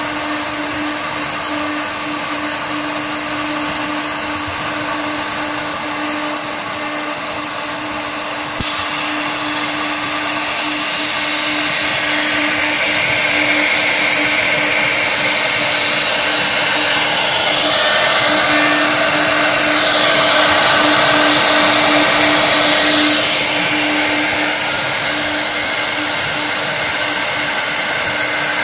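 Both spindles of a double-head CNC wood router running and cutting pockets in a wood panel: a steady spindle hum under the hiss of the bits in the wood. It grows louder about a third of the way in and is loudest around two-thirds through.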